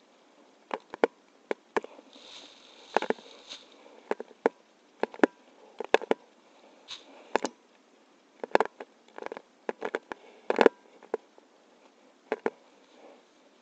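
Irregular sharp clicks and taps of camera-mount handling noise as the wearer moves about, with a brief rustle about two seconds in.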